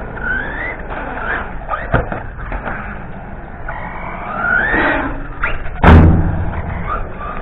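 RC car motor revving up and down in repeated rising whines as the car accelerates and slows across concrete. About six seconds in there is a single loud thump.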